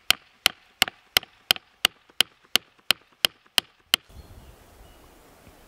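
A carved wooden sap tap being hammered into a drilled hole in a birch trunk: a dozen light, even knocks about three a second, stopping about four seconds in. After that there is only faint outdoor background.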